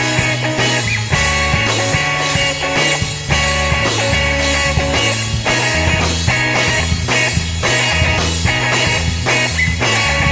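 Instrumental passage of a psychedelic-leaning rock song: guitar and drum kit over a moving bass line, with a steady beat and no singing.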